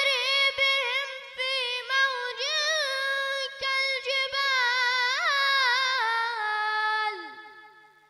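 A boy's high voice chanting Quran recitation in one long drawn-out phrase, held notes with wavering ornaments, dying away about seven seconds in.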